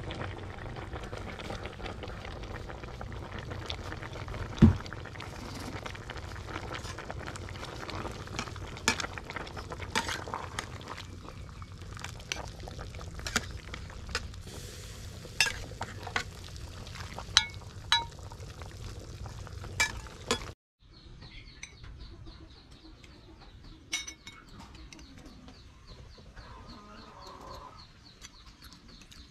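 A metal ladle clinking and scraping against an aluminium pot and bowl while boiling chicken soup is stirred and ladled out, over the steady hiss of the boiling pot, with one loud knock about five seconds in. About twenty seconds in, the sound cuts to a quieter outdoor scene with birds chirping and a few faint clinks.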